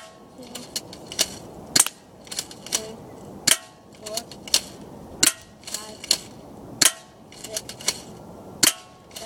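Crosman Stinger S32P airsoft gun firing repeatedly: a rapid series of sharp snaps, one strong shot roughly every half second to second, with lighter clicks in between.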